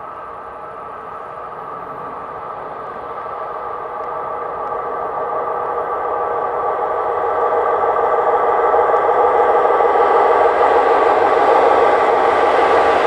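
A DR class 242 (E 42) electric locomotive hauling passenger coaches approaches, its running noise on the rails growing steadily louder, with a steady whine of several tones over it.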